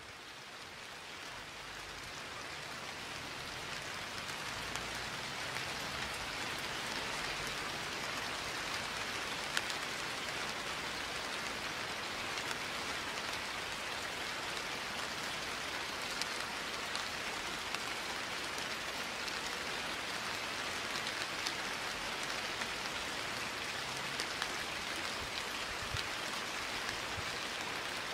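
Steady rain falling, fading in over the first few seconds and then holding level, with the odd sharper drop tick.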